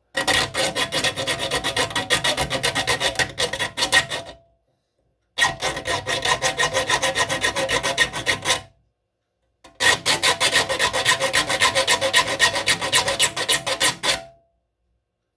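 Small triangular file rasping across a hand saw's teeth in three bouts of quick strokes, each a few seconds long with about a second's pause between: the teeth being sharpened.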